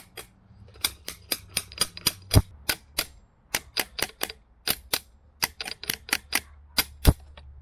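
Rapid light metallic taps on an adjustable wrench clamped around an outboard's driveshaft, tapping a stainless steel ring down against the new water pump impeller. There are about four taps a second, with two heavier knocks, one about two and a half seconds in and one near the end.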